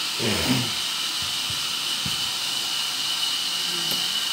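Steady background hiss with a thin high tone held through it. A short voice-like sound comes just after the start, followed by a few soft low knocks.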